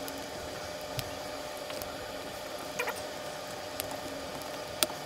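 Scattered light clicks and taps as an acrylic robot-car chassis and its plastic wheels are handled, with the sharpest click near the end, over a steady low hum.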